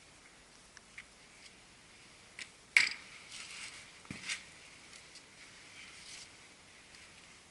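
Tools or parts being handled during the work: a few light clicks, a sharp click about three seconds in, then a brief rustle and a dull knock just after four seconds.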